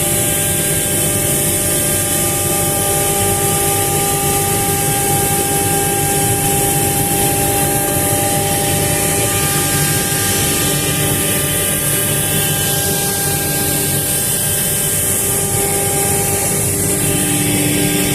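CNC router spindle running steadily at about 24,000 rpm as the cutter mills a pattern into a curved furniture facade. It gives a continuous high whine over a broad hiss.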